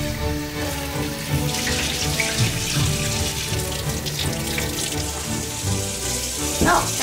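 Kitchen faucet running into a stainless steel sink, water splashing over beef rib pieces in a steel bowl and over a radish being rubbed clean under the stream. A short rising-and-falling tone stands out near the end.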